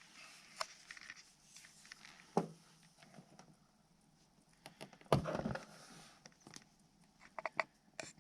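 Scattered light clicks and knocks of objects being handled, with one heavier thump about five seconds in.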